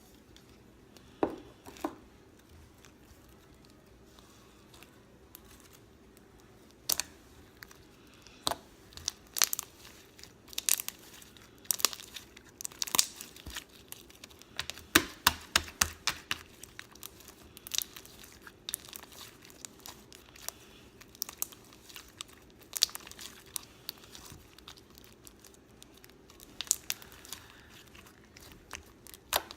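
Crunchy slime loaded with beads being squeezed and pressed by hand, giving irregular crackles and sharp pops. There are a couple of pops about a second in, then the crackling grows dense from about seven seconds in.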